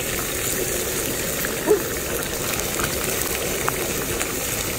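Steady rushing noise of a wok of seafood cooking hot over a burner, with one short louder sound a little under two seconds in.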